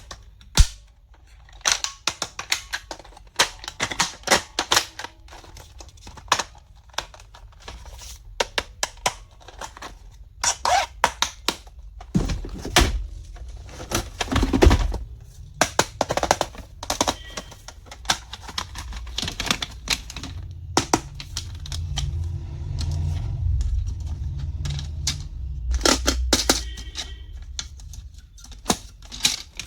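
Irregular clicks and taps of small plastic items being handled, opened and set down, some in quick runs. A low rumble rises through the middle and second half.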